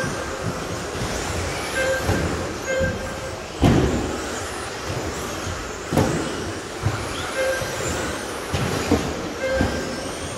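Radio-controlled model trucks racing on a carpet track: a steady whir of motors and tyres, with two sharp knocks, the louder about four seconds in and another about six seconds in, as cars land or strike something. Short electronic beeps sound now and then.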